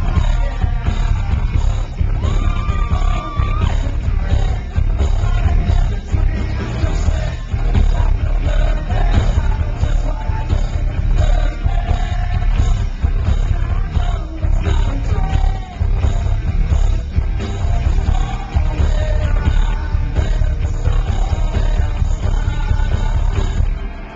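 Live rock band playing, with a male lead vocalist singing over electric guitar, drums and heavy bass.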